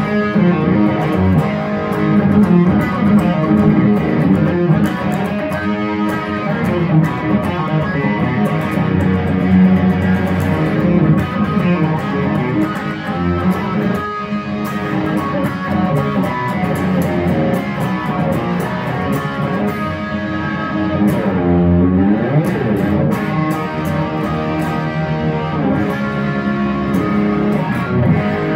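Electric guitar played hard, strummed chords and riffs, with a swooping bend in pitch about three-quarters of the way through.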